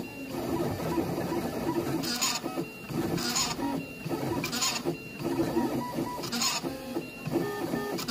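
Motor-driven engraving machine cutting a date into the inside of a metal quaich. Its drive motors whine in short tones that jump from pitch to pitch as the cutter moves, with a brief louder hissing pass every second or two.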